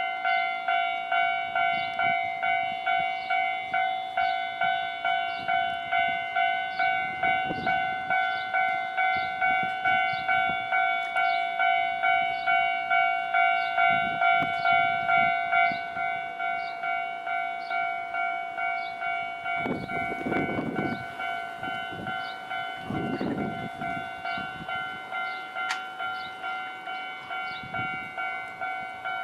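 Japanese level crossing warning bell ringing in a steady, repeating electronic clang, growing quieter about sixteen seconds in. A train passes, heard as low rumbling swells about twenty and twenty-three seconds in under the bell.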